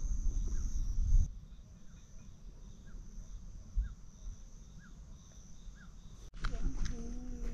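Outdoor nature ambience: insects drone steadily on one high note, with wind rumbling on the microphone for the first second. Faint short chirps repeat about once a second. About six seconds in, the sound cuts abruptly to a louder stretch with a wavering pitched call.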